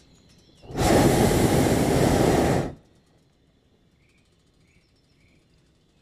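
Hot-air balloon propane burner firing in a single blast of about two seconds, loud and steady, starting and stopping sharply.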